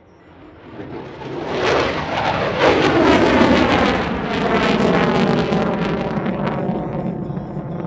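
F-22 Raptor's twin Pratt & Whitney F119 turbofans on a fast pass: the jet noise swells quickly from quiet to a peak about three seconds in, with a falling pitch glide and a ragged crackle, then settles into a lingering rumble as the jet moves away.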